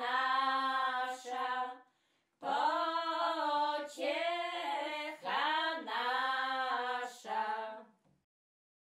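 Older women's voices singing a Lenten hymn together, unaccompanied; a short pause for breath about two seconds in, and the last phrase ends about eight seconds in.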